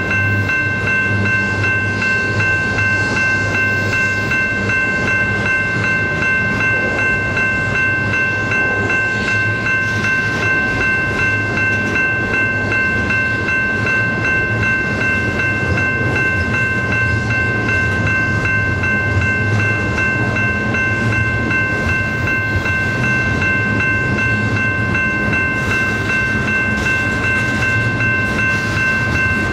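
Loaded double-stack intermodal well cars rolling steadily past, a continuous rumble of steel wheels on rail. Several steady high-pitched squealing tones run through it without change.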